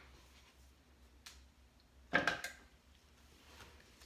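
Quiet handling of plastic soaping containers: a faint click about a second in, then a short knock and rustle a little after two seconds in, as a squeeze bottle is picked up.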